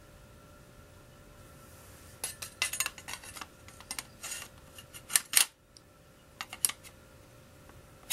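Metal rail handguard halves clinking and clicking against the receiver of an MP5 gas blowback airsoft gun as they are fitted on: scattered metallic clinks and rattles starting about two seconds in, the loudest a little after five seconds, and a sharp click near the end.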